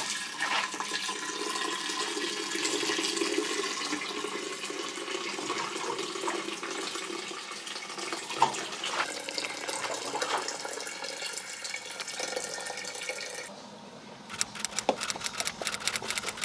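Water running steadily from a dispenser spout into a plastic jug. About three seconds before the end the pouring stops and a fast, rhythmic ticking begins.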